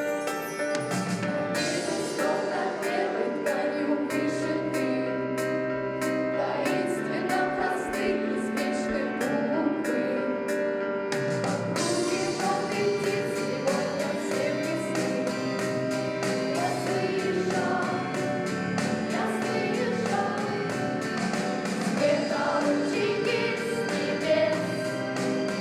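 A choir singing over instrumental accompaniment, with a regular beat of about two strikes a second.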